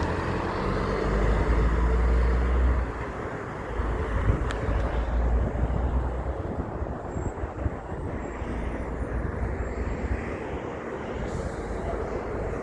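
Heavy trucks passing on a road. A loud, low engine rumble builds and peaks in the first three seconds, then gives way to steadier road noise with a brief click about four and a half seconds in.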